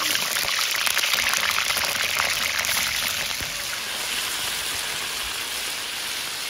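Food sizzling and crackling in hot oil in a black wok-style pot over a wood fire. The sizzle is dense and continuous, easing a little about halfway through.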